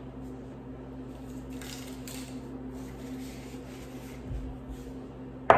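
Faint rustling of a paper napkin wiping a ceramic mug over a low steady hum, then a sharp knock near the end as the mug is set down on the counter.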